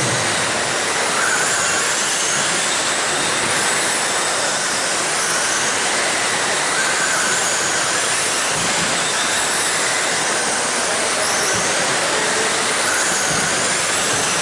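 Several RC dirt-oval sprint cars with 13.5-turn brushless electric motors racing: a steady hiss of tyres and drivetrains on dirt, with the motors' high whines rising and falling as the cars pass.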